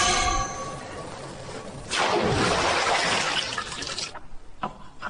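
Glowing hot steel plunged into quench water, hissing loudly for about two seconds before cutting off sharply. A ringing tone dies away just before it.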